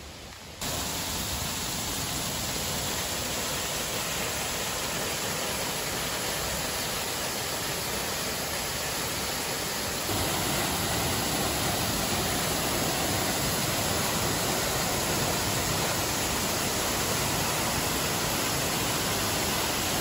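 Waterfall: a steady rush of falling water, getting a little louder about halfway through.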